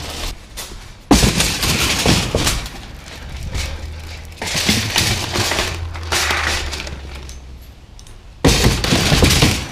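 Empty wire shopping cart rattling loudly as it is pushed over rough, cracked asphalt, in three stretches. The loudest clatter, near the end, comes as the cart is lifted up.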